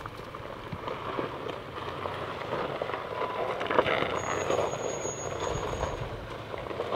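Toyota Tacoma pickup crawling slowly down a steep, rocky trail, its tyres crunching and grinding over loose rock and gravel with small scattered clicks of stones.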